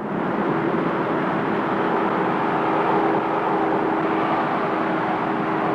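Steady outdoor traffic noise with a steady two-note hum running through it, cutting in suddenly at the start.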